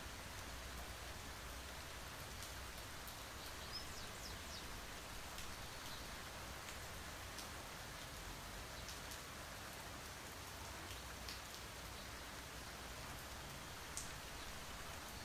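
Steady rain, a soft even hiss with scattered individual drop ticks, one louder drop near the end.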